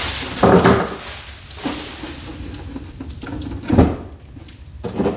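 Pioneer CT-1280WR cassette deck being set down and shifted on a wooden workbench: a few bumps and scrapes, the loudest about four seconds in, with packing material rustling at the start.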